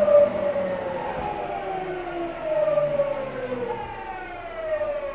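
Traction inverter and motors of a Tokyu 9000 series electric train, heard from inside a motor car. The whine falls steadily in pitch in several overlapping tones, the sound of the motors slowing the train under electric braking. This is the GTO-thyristor VVVF inverter typical of the class.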